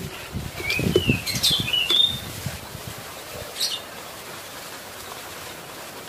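Hand-pump spray bottle hissing in short squirts as it mists a caged bird, which gives several short rising chirps and flaps its wings in the cage during the first two seconds.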